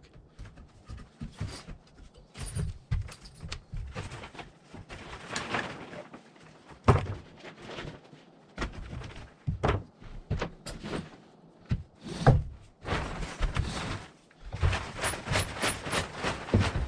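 Plastic tarp door being handled and rolled up by hand: rustling and crinkling, with irregular knocks and thuds.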